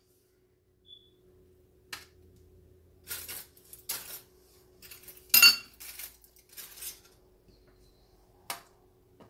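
Metal spoon clinking and scraping against small glass bowls: a run of separate, sharp clinks, the loudest about halfway through, over a faint steady hum.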